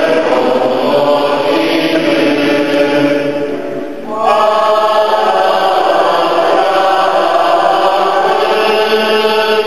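Congregation singing a hymn together in a church, slow and chant-like with long held notes, pausing briefly for breath about four seconds in.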